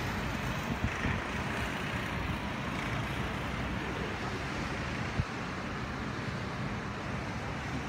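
Steady outdoor background noise: a low rumble with a hiss over it, and no distinct events.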